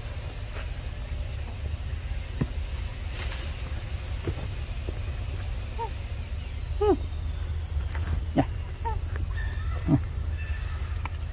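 Macaques giving several short squeaky calls, some falling in pitch, in the second half, over a steady high insect drone and a low rumble.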